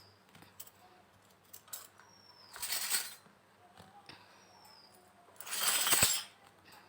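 Small pieces of a miniature toy kitchen set being handled: two short scraping, rustling sounds, with light clicks and taps between them.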